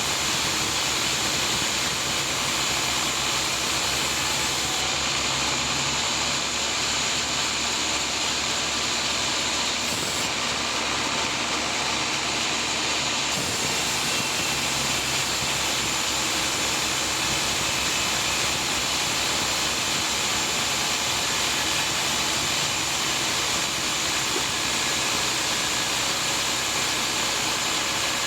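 Sawmill saw running steadily through a teak log: a dense, unbroken hiss with a low motor hum beneath it.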